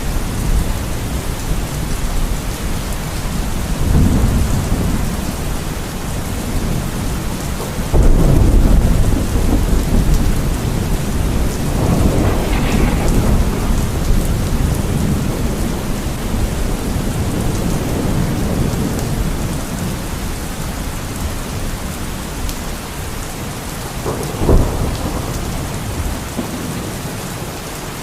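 Steady rain falling, with rolls of thunder rumbling over it: a loud sudden one about eight seconds in and weaker rumbles a few seconds before and after it, and another near the end.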